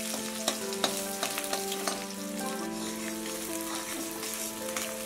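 Sliced onions sizzling in hot oil in a metal kadai, being fried until brown, with a metal spatula scraping and clicking against the pan as they are stirred. Soft background music with held notes plays underneath.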